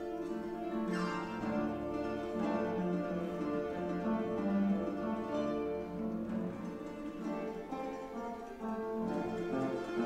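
Solo harp being played: quick plucked melody notes and arpeggios ring over lower bass notes, in a lively continuous passage.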